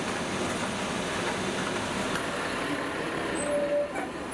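Steady engine noise filling a military transport aircraft's cargo hold as a HIMARS rocket-launcher truck is handled on the ramp, with a short steady tone near the end.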